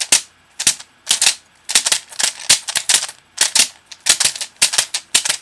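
Loose plastic keycaps from a dismantled computer keyboard clicking and clattering in quick, irregular clusters of sharp strokes.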